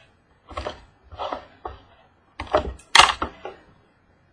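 Trading card boxes and packaging being handled: a run of short rustling and knocking noises, several in a row, with the loudest a little past the middle.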